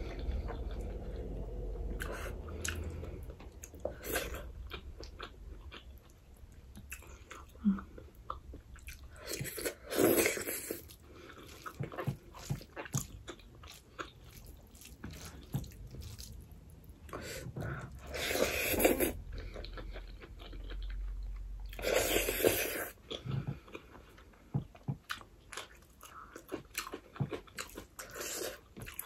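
Close-up eating sounds of a person chewing rice, curry and pork eaten by hand: many small wet chewing and lip-smacking clicks. A few louder breathy sounds, each about a second long, stand out about a third of the way in and twice more past the middle.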